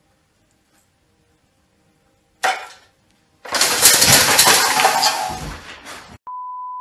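A metal fireplace screen pulled over by a cat. There is a short knock about two and a half seconds in, then a second later a loud metallic crash and clatter as the screen falls, fading over about two seconds. Near the end comes a short steady beep.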